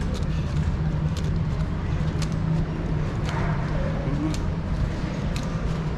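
Steady low drone of a car on the move, with a few light clicks.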